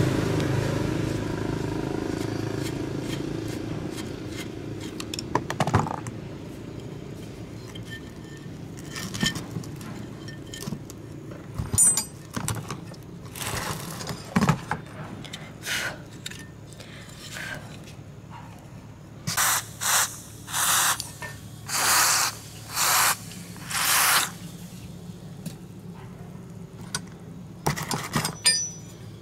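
Electric grinder motor coasting down after being switched off, its hum fading away over about five seconds. Then come scattered scrapes and knocks, and near the middle a run of six short scraping strokes about a second apart.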